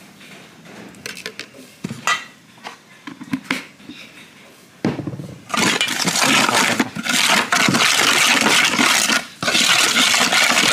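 Plastic spoon stirring and scraping gritty ground chili around an aluminium bowl. First a few light taps and clinks, then from about five seconds in a loud continuous gritty scraping with two brief breaks.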